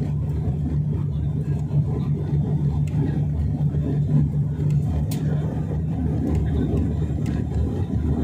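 Airliner cabin noise in flight on the approach: the steady low roar of jet engines and airflow, with a constant low hum underneath and a few faint clicks.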